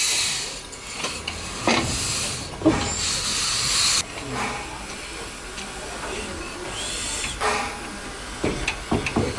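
Small industrial steam tank locomotive hissing steam as it moves slowly, in several bursts, one of which cuts off abruptly about four seconds in. A few sharp clanks and knocks come through, several of them close together near the end.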